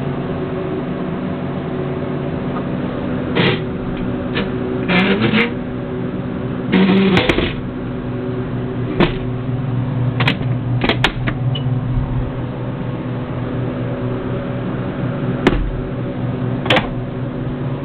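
A steady mechanical hum runs throughout, with a scatter of sharp clicks and knocks from an antique iron safe's door and fittings being handled. There are two longer scraping rattles around five and seven seconds in.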